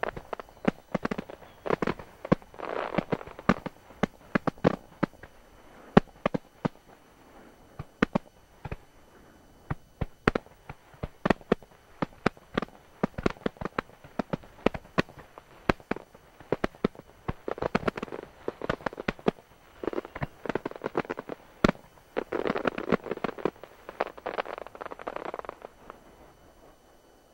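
Aerial firework shells bursting: a rapid, uneven string of sharp bangs and pops, with denser stretches of crackling, thinning out near the end.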